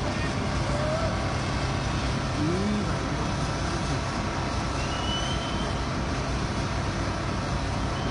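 Steady running noise of heavy construction machinery engines with a low hum, and faint distant voices calling out now and then.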